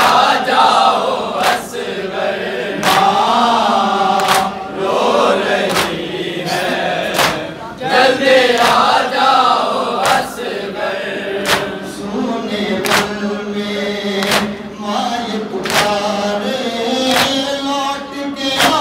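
Male voices chanting a noha, a Shia lament: a lead reciter on the microphone with the group singing along. The group's chest-beating (matam) lands in unison as sharp slaps about every one and a half seconds.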